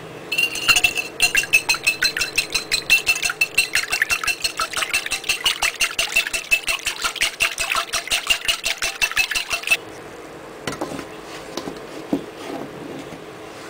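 A utensil beats an egg into milk in a bowl, clinking against the bowl's side in fast, even strokes, about six a second, each with a ringing tone. The beating stops about ten seconds in, leaving only a few faint knocks.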